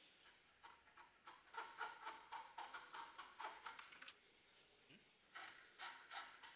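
Hacksaw cutting through a clamped stack of thin metal strips: quick back-and-forth rasping strokes, about three a second, stopping for about a second around four seconds in, then starting again.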